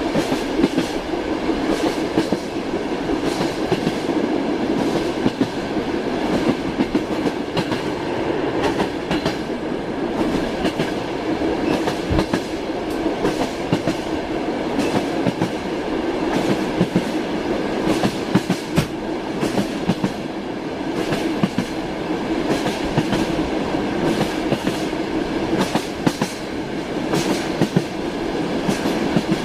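Train running along the line: a steady rumble with the wheels clacking over rail joints again and again.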